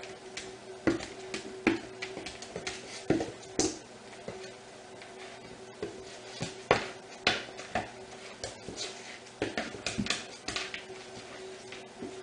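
A spoodle eating dry kibble off a hard floor: irregular clicks, taps and crunches as it picks up pieces and shifts about, some louder than others, over a steady low hum.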